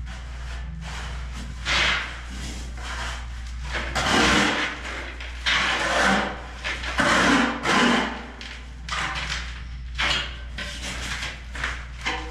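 Trowel scraping and spreading damp sand-cement mortar on a floor in repeated gritty strokes, loudest from about four to eight seconds in. A steady low hum runs underneath.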